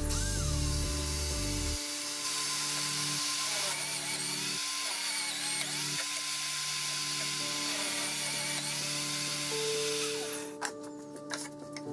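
Corded electric drill running, mounted in a homemade wooden drill press, over background music. The drill sound drops away about ten seconds in.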